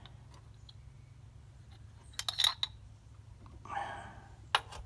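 Metal hand tools clinking: a wrench and locking pliers knocking against each other and the carburetor fittings. There are a few sharp clinks about two seconds in and one more near the end, over a low steady hum.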